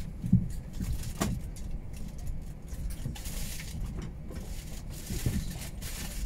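Steady low rumble inside a parked Airbus A320's cabin, with a few faint knocks and clicks.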